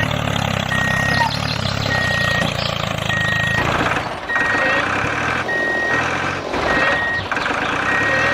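Vehicle reversing alarm beeping about once a second, each beep a single steady high tone, over an engine's low hum that weakens about halfway through.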